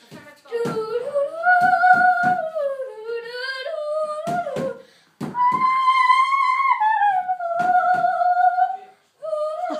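A young girl's voice humming a wordless tune in long notes that slide up and down, in three phrases with short breaks, over scattered sharp thumps.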